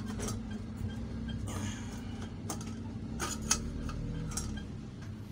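A steady low hum with a faint regular ticking, about two ticks a second. Over it come a few light clicks and knocks from a hand handling a steel torque converter input plate on a wooden bench; the sharpest is about three and a half seconds in.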